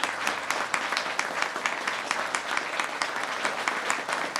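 An audience applauding steadily with many hands clapping.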